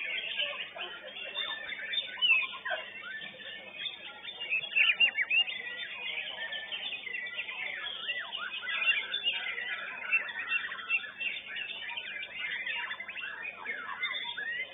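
White-rumped shamas (murai batu) singing together in a dense, overlapping run of quick whistles, chirps and sliding notes, with louder bursts every few seconds.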